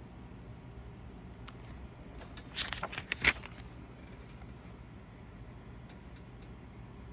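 Thin notebook paper being handled as a page is turned: a short burst of crackling paper clicks about two and a half seconds in, ending in one sharp tap a moment later.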